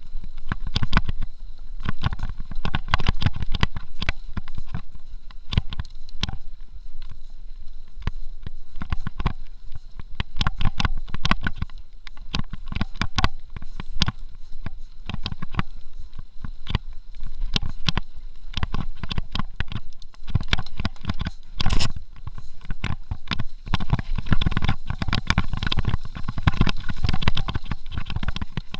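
Mountain bike rattling and clattering over a rough dirt singletrack: a dense, irregular run of clicks and knocks over a steady low rumble, with one harder knock about three quarters of the way through.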